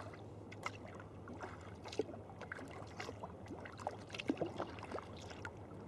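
Sea kayak paddling: irregular small splashes and drips of the paddle blades in calm water, over a steady low hum.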